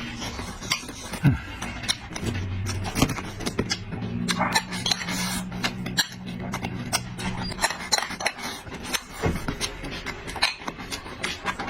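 Eating at close range: chopsticks or cutlery clicking against a bowl many times, with the wet smacks of chewing in between.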